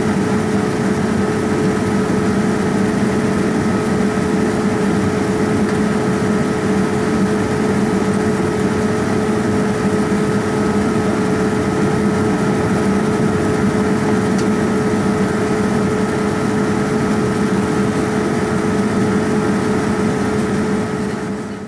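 Cabin noise inside a Boeing 787-9 Dreamliner in its climb after take-off, heard at a window seat over the wing: the steady rush of its Rolls-Royce Trent 1000 engines and the airflow, with a constant low hum and a fainter higher whine. It fades out at the very end.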